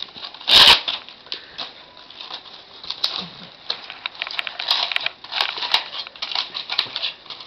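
Aluminum foil wrapping crinkling and crackling as a small taped package is torn open by hand, with one short, loud rip about half a second in.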